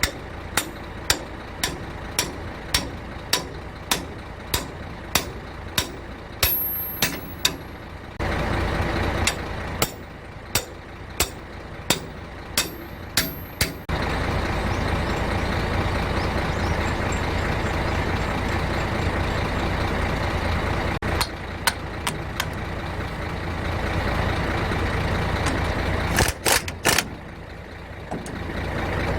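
Sharp strikes about two a second over a low steady hum, giving way about halfway through to a steady loud mechanical noise, with a few hard knocks near the end.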